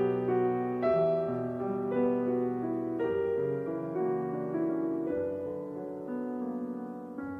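Soft piano music as a soundtrack, chords struck about once a second and left to ring, growing quieter toward the end.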